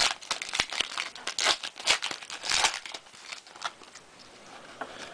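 Foil wrapper of a trading card pack crinkling and tearing open, with cards being handled. The crackle is dense for the first three seconds, then dies down to a few light ticks.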